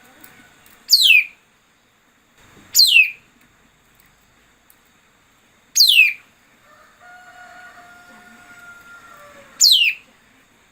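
A songbird giving a sharp, steeply falling whistled call four times, spaced a few seconds apart: a decoy call of the kind used to lure wild birds into traps.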